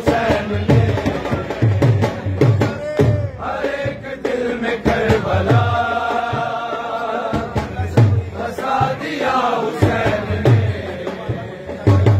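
A group of men singing an Urdu Shia devotional chant in praise of Hussain, voices together with some long held notes, over a steady low beat of about one thump a second.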